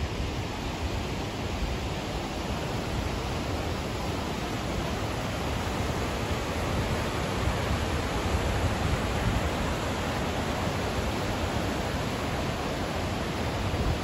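Water rushing and tumbling over sandstone boulders in a steady, even rush. This is spillway overflow from a full reservoir, running as seasonal falls and rapids.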